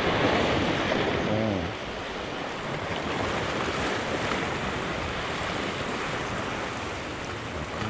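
Sea waves washing and splashing close by, with wind on the microphone, somewhat louder in the first second or two.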